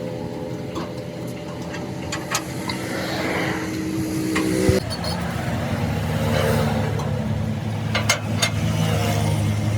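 A motor vehicle engine running steadily. Its tone changes abruptly about halfway through, with a few sharp clicks, and a low hum grows louder near the end.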